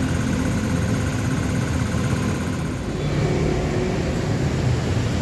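Steady low rumble of motor vehicle engines and traffic, with a higher steady hum over the first three seconds that then stops.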